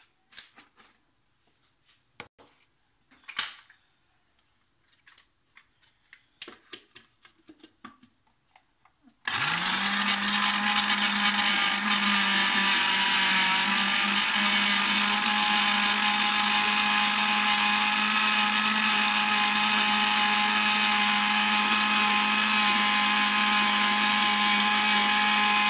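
A few small clicks and knocks, then about nine seconds in a Moulinex countertop blender is switched on, spins up quickly and runs loud and steady at one speed, blending eggs and oil.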